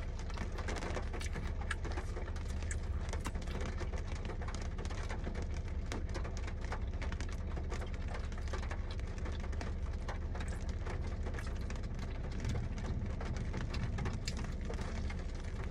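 Rain pattering steadily on the car's roof and windows, heard from inside the car, with close-up chewing of fried chicken tenders.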